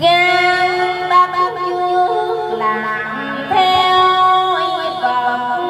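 A woman's voice chanting Hòa Hảo Buddhist scripture verse in a slow sung style into a microphone, amplified through a loudspeaker. She holds long notes, stepping up in pitch a little past halfway.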